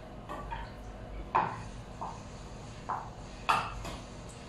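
Wooden spoon knocking and tapping against a small metal saucepan while stirring: six or so sharp taps with a short ring, irregularly spaced, two of them much louder than the rest.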